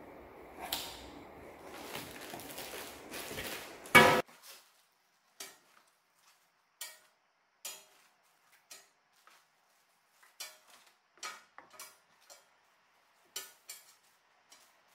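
Plastic-bagged light pods and wiring being handled and set down on a steel workbench: crinkly rustling of plastic for the first few seconds, one sharp knock about four seconds in, then a string of small separate clinks and taps as the parts are laid out.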